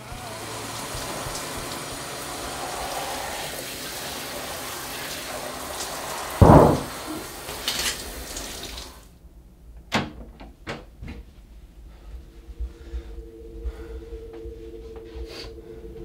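Water running steadily, as from a tap or shower, with one loud thump partway through; the water cuts off suddenly about nine seconds in. A few sharp clicks or knocks follow, then a steady two-note hum.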